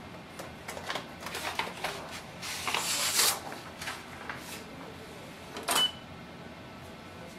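A stack of paper rustling and sliding into the rear paper tray of a Canon Pixma TR7620a inkjet printer, with small plastic taps of the tray. About six seconds in there is one sharp plastic click as the feed-slot cover is handled.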